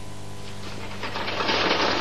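A fork scraping and rattling quickly against a metal frying pan while stirring omelette eggs as they set in hot butter. The clatter grows louder about a second in. A steady electrical hum runs underneath.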